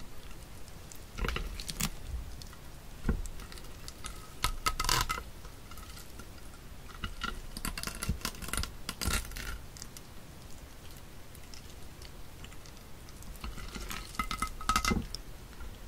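Wet, sticky clicking and squelching as live octopus tentacles and their suckers are peeled off a plate and handled, in several short bouts with brief squeaks.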